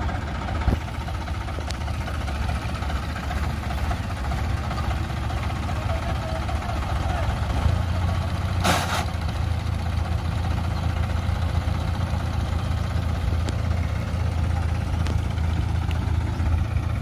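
Tractor diesel engine running steadily, with a short hiss about nine seconds in.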